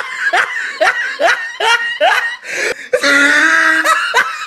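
A woman laughing: a run of short rising laughs, about two to three a second, then a longer drawn-out voiced stretch about three seconds in.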